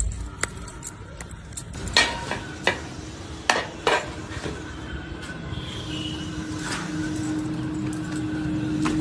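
Several sharp knocks and clinks of hard objects being handled, then a steady low hum in the last few seconds.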